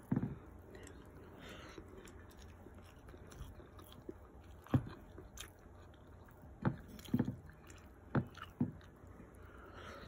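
A person chewing a mouthful of chicken and rice, with a few short, quiet mouth clicks and smacks scattered through the chewing.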